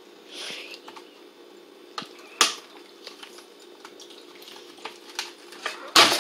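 Locking pliers and hard plastic clicking and knocking as a reverse osmosis membrane filter is pulled out of its housing. Scattered light clicks, a sharper knock about two and a half seconds in, and a loud clatter near the end.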